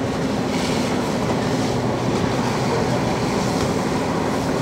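Fire engine's motor running steadily, a constant low droning hum, with a few faint hissing swishes over it.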